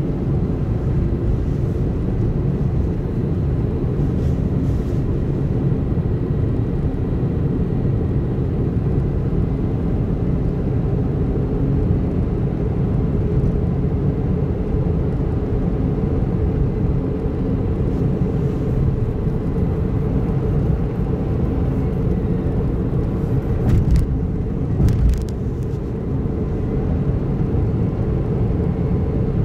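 A car travelling at a steady speed on a highway makes a steady low rumble of tyre and engine noise. Near the end there are a few brief knocks.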